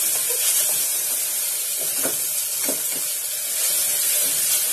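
Onion, tomato and ginger-garlic paste sizzling steadily in hot oil and ghee in an aluminium pressure cooker while being stirred, with a few light scrapes against the pot.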